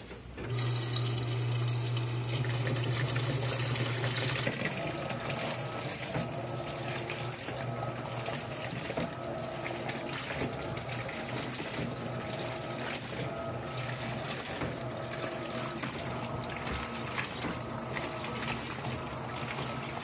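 Electrolux top-load washing machine filling with water to a higher level over a full load of clothes: a steady hum with water rushing into the drum starts about half a second in. The rush eases about four and a half seconds in, and quieter running and splashing water continues.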